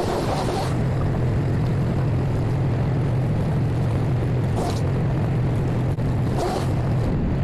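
An engine running steadily with a low, even drone, broken twice by short hissy rustles in the second half.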